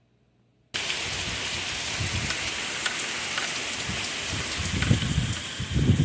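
Heavy rain pouring down, a steady hiss that comes in abruptly less than a second in and holds.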